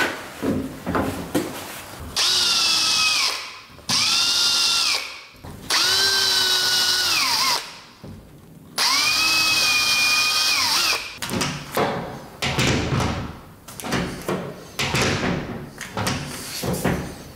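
Cordless drill-driver running in four bursts of one to two seconds, its whine dropping in pitch as each burst ends, while fixing the latch keep. Then a run of clicks and knocks as the door handle and latch are worked.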